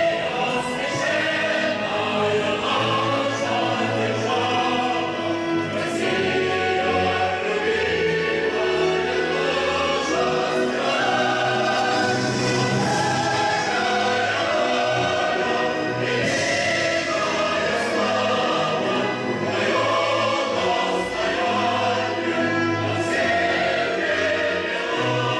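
Choir singing with orchestral accompaniment, played steadily throughout.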